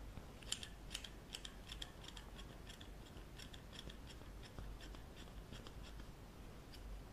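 Hairdressing scissors snipping through hair in a quick run of small snips, about three a second, thinning out after about four and a half seconds.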